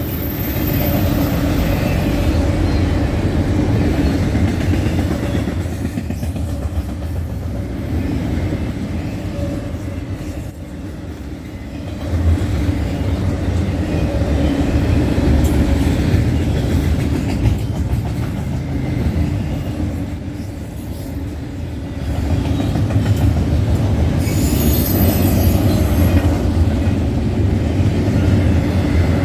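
Freight cars of a long CN train rolling past on the rails: a steady rumble with clickety-clack of the wheels, swelling and easing as the cars go by. A thin high squeal from the wheels comes and goes near the end.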